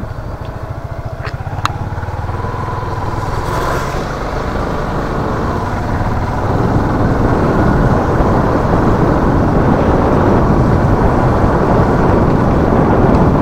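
A vehicle's engine running as it drives along a rough road, with two sharp clicks about a second and a half in. From about six seconds in, road and wind noise grow louder as it picks up speed.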